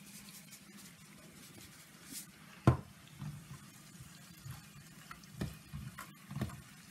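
Chopped green onions sizzling faintly in oil in a frying pan while a silicone spatula stirs them, with scraping and soft knocks against the pan. A sharp, louder knock comes a little under three seconds in.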